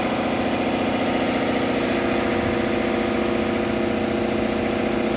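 Heavy-drum carpet-wringing machine running steadily under its electric motor, a constant hum made of several steady tones.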